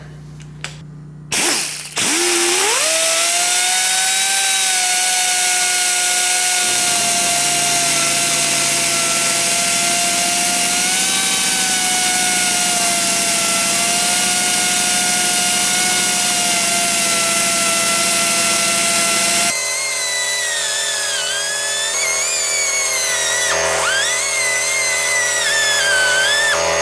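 Die grinder with a small ball carbide burr spinning up about two seconds in, then running at a steady high whine. In the last part the burr grinds into an aluminum weld bead, and its pitch dips and wavers as it bites.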